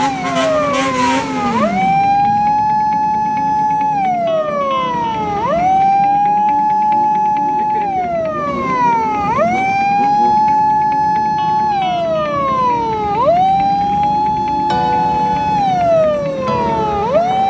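Japanese police patrol car siren wailing in a repeating cycle about every four seconds: a quick rise, a held high tone, then a slow fall.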